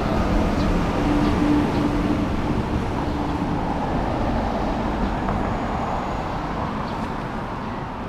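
A city bus driving past, its engine hum fading over the first two or three seconds, then steady street traffic noise.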